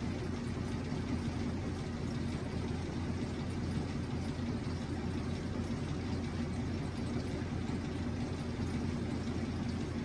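A steady low mechanical hum with a faint steady tone in it, unchanging throughout.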